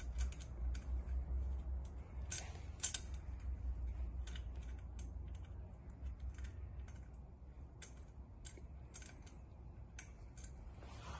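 Irregular small metallic clicks and ticks of an Allen key working the bolts in the aluminium extrusion frame of a D12/500 3D printer, over a low steady hum.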